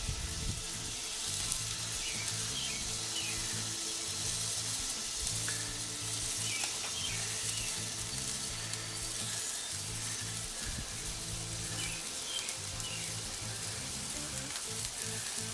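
Rib-eye steaks sizzling steadily on a hot gas grill, an even hiss with no break, with soft background music underneath.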